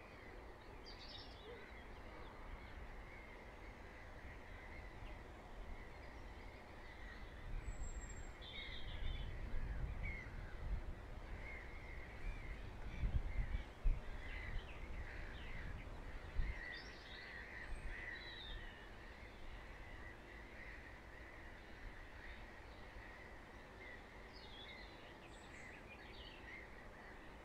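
Birds calling and chirping over a faint steady background, with scattered short calls throughout. A low rumble swells in the middle and then fades.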